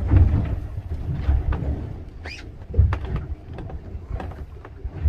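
Wind buffeting the microphone as a low, uneven rumble, with a few sharp knocks from the boat around the middle.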